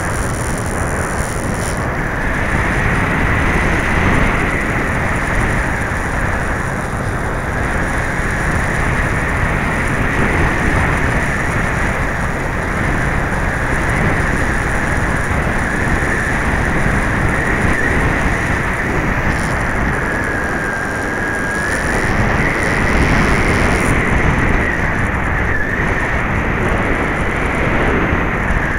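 Electric motor and propeller of an FPV-Raptor 1600 model plane in flight, recorded on board: a steady high whine that wavers slightly in pitch and dips briefly about twenty seconds in. Under it is heavy rumbling wind noise on the microphone from very gusty wind. The propeller is slightly out of balance.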